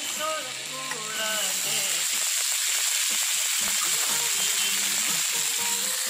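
Tandoori chicken sizzling on a hot iron sizzler plate: a steady hiss.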